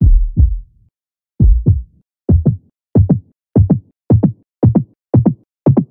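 Electronic intro music: pairs of deep drum-machine thumps, each falling in pitch, coming in a heartbeat-like double beat that gets faster and faster.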